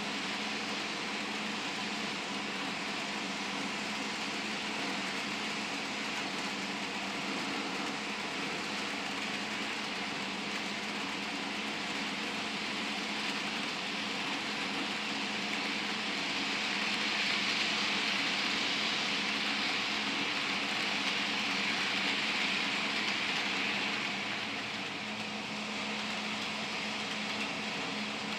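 HO scale Life-Like Proto 1000 Southern Pacific NW-2 model diesel switcher and its freight cars running along the track: a steady whir of motor and rolling wheels that gets louder for about eight seconds in the second half as the train passes close, over a steady low hum.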